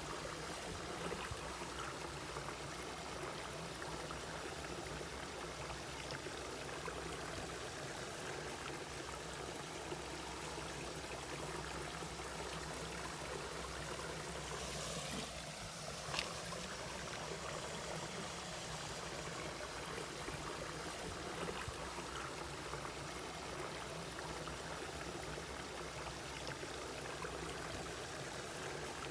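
Mountain valley stream flowing steadily, an even rush of water, with one brief sharp tick about halfway through.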